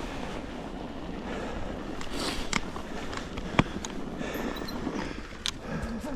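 Mountain bike rolling along a snowy trail: a steady rushing noise of the tyres and the ride, broken by a few sharp knocks and rattles from the bike.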